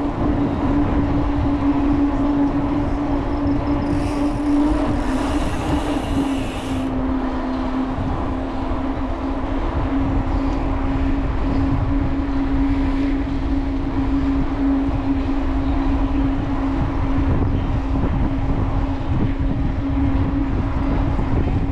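Wind rushing over the microphone of a camera on a moving bicycle at about 13 mph, with a steady hum under it that drops slightly in pitch about five seconds in. A short hiss comes through between about four and seven seconds in.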